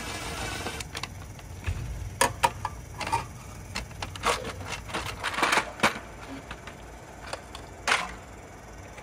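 Irregular clicks, knocks and clatter of hand tools and a plastic valve cover being worked loose and lifted off a BMW N20 four-cylinder engine.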